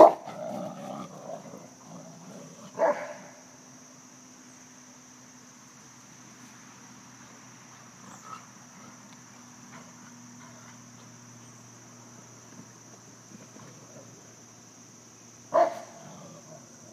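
Rottweilers barking in play: a loud bark right at the start, a single bark about three seconds in and another near the end, over a steady high insect buzz.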